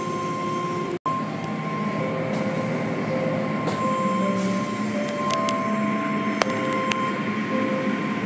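Automatic car wash tunnel heard from inside a car: a steady rush of water spray and machinery with a steady whine and shifting hum from the wash motors. The sound cuts out for an instant about a second in.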